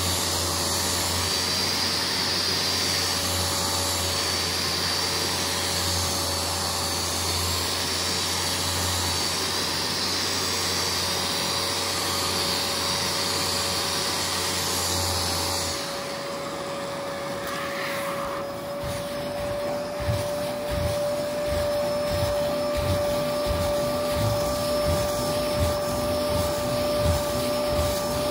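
Kärcher carpet-cleaning machine running with a steady vacuum-motor noise. About sixteen seconds in the sound changes: the deep hum drops away, leaving a steadier higher-pitched whine, and a low rhythmic thudding about twice a second joins it.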